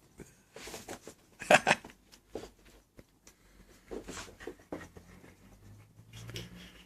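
A dog's short, breathy snorts and sniffs, a handful of separate bursts, the loudest about one and a half seconds in. A low steady hum comes in during the last two seconds.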